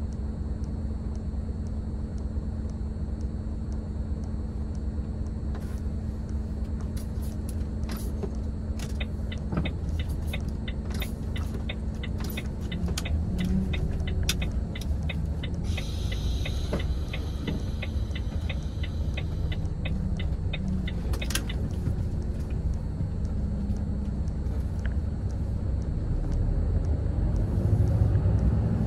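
Volvo FH16 truck's diesel engine running low in the cab as it drives slowly, with an even ticking, typical of the turn-signal indicator, for about twelve seconds in the middle. Near the end the engine note rises as the truck accelerates.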